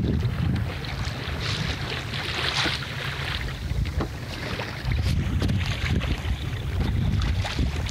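Wind buffeting the microphone in low rumbling gusts over the hiss and splash of water rushing along the hull of a small sailboat under way. The rumble eases after the first half second and swells again about five seconds in.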